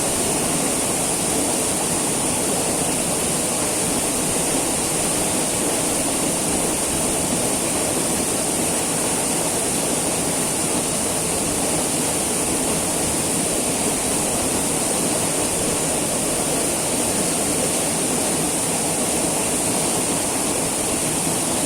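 Small waterfall pouring steadily, a constant rushing of falling water heard close up.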